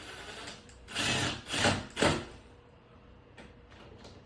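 Hardware handling as screws go back into a ceiling fan's mount: three short noisy bursts close together about a second in, with a few light clicks.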